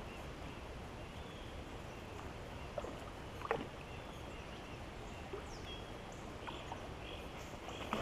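Low, steady background of a small creek's flowing water, with a couple of faint knocks about three seconds in.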